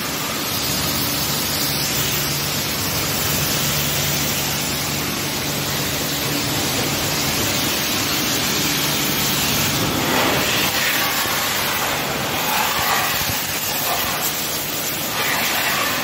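High-pressure car washer running at good pressure after servicing: its pump motor hums steadily under the loud hiss of the water jet spraying onto a tiled floor. The hum drops away about ten seconds in, while the spray hiss grows uneven as the jet moves over the surfaces.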